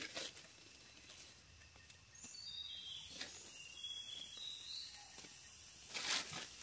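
Quiet forest ambience with a few brief rustles and crackles of dry leaf litter as the forest floor is walked on and worked while picking mushrooms. A few faint high chirps come midway.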